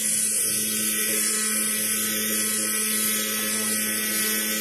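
Naval rescue drone's propeller motor running at full throttle, a steady buzz of constant pitch. The drone taxis on grass on undersized wheels and needs that much throttle just to keep moving.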